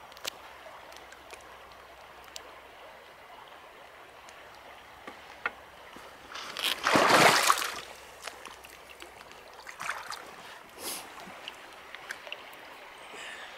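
Shallow stream water running over stones, with a few small ticks, and one loud burst of splashing lasting about a second and a half a little past halfway through.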